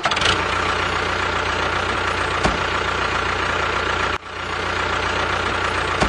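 An engine idling steadily, as for a tractor, with a single click about two and a half seconds in. About four seconds in it drops out abruptly and comes back.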